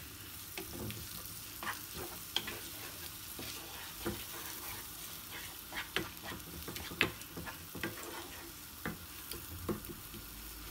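A wooden spatula scrapes and knocks irregularly in a small frying pan as eggs scramble with fried onions, over a steady sizzle of frying in oil. A sharper knock comes about seven seconds in.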